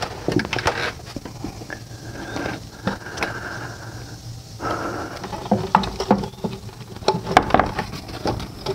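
Plastic intake plenum being worked loose and lifted off a V6 engine: scattered clicks, knocks and plastic scraping, busier in the second half.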